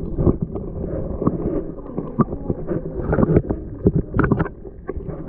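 Muffled rumble and slosh of creek water heard through a small camera held underwater, with irregular knocks and clicks as the camera shifts and bumps. A few sharper knocks come past the middle.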